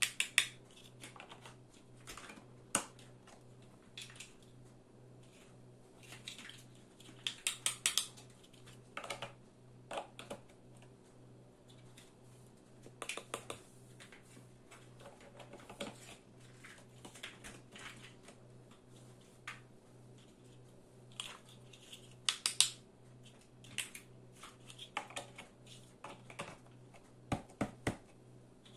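Large plastic building blocks clicking and clacking as they are handled, pushed onto the studs and pressed down into the wall: irregular sharp clicks, some in quick runs of several. A steady low hum lies underneath.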